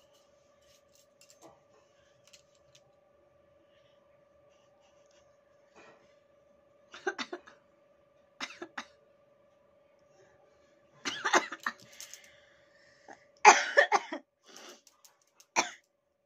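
A woman's short coughs and breathy throat sounds as she tickles the inside of her nose with a rolled paper strip to bring on a sneeze. There are several bursts in the second half, the loudest about three-quarters through, over a faint steady hum.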